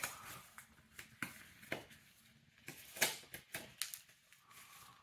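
Thin disposable glove crinkling and rustling as it is worked onto a hand: faint, irregular little crackles and clicks.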